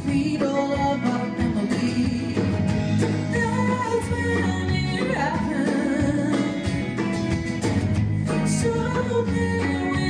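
Live band music: electric and acoustic guitars, bass and drum kit playing together, with a voice singing.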